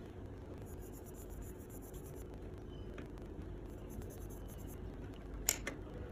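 Makeup brush stroking over the skin of a hand, faint soft scratchy brushing over a low steady hum, with two sharp clicks near the end.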